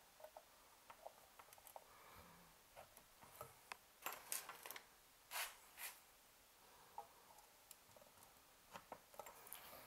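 Faint clicks and light scrapes of 6BM8 vacuum tubes being handled and pushed into their sockets on a tube amplifier chassis, with a few short rustling sounds about four to six seconds in.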